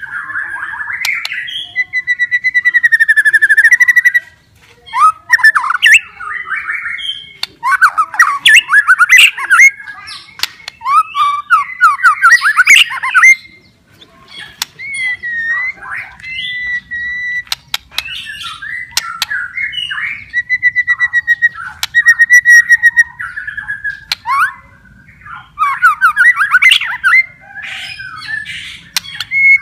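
White-rumped shama (murai batu) singing loudly in full 'gacor' voice: phrase after phrase of clear held whistles, fast rattling trills and sharp clicking notes, with short breaks between phrases.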